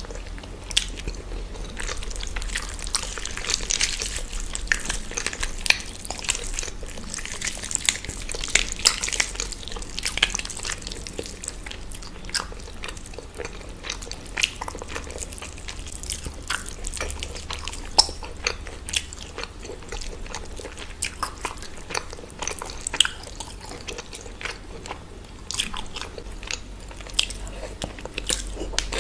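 A person eating close to the microphone: wet chewing and lip-smacking with many irregular sharp clicks and occasional crunches as they bite into chicken and rice.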